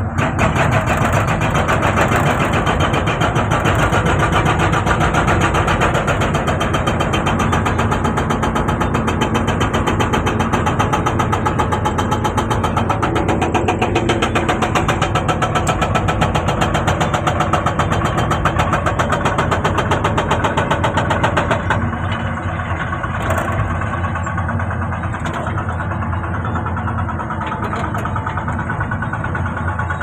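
Excavator-mounted hydraulic breaker hammering its chisel into rock with rapid, steady blows over the excavator's engine. About three-quarters of the way through the hammering stops and the engine carries on running.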